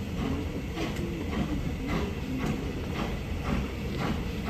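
Steam-hauled passenger train running slowly, heard from inside a carriage: a steady low rumble with a regular beat about twice a second.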